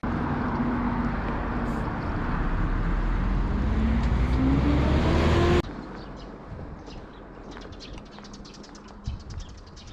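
A vehicle engine running and accelerating, its pitch rising steadily, cutting off abruptly about five and a half seconds in. After that, quieter outdoor ambience with birds chirping and a dove cooing.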